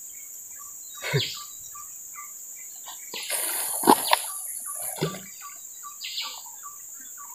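Steady high-pitched insect drone with scattered short bird chirps; a louder, higher insect buzz joins for about a second and a half in the middle. A few brief rustles or knocks come about a second in, around four seconds in and about five seconds in.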